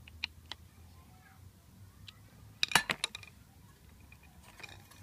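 Metal tool and alternator parts clinking during hand work on a car alternator: a few light clicks in the first second, then a louder rattle of metal clinks about three seconds in.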